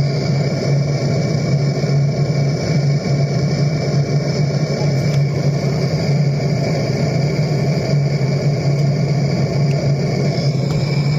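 A steady machine hum with a hiss above it, even and unchanging throughout.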